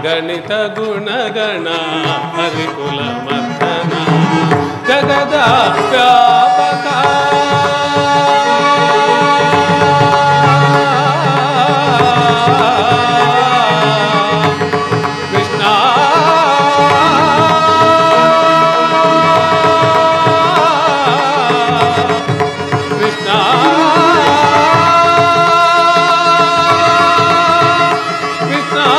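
Carnatic-style stage song: a singer holds long, ornamented notes and slides between pitches, over tabla and instrumental accompaniment.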